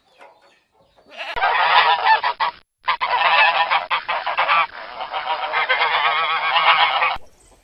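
A flock of geese honking together, many overlapping calls at once, with a short break about two and a half seconds in.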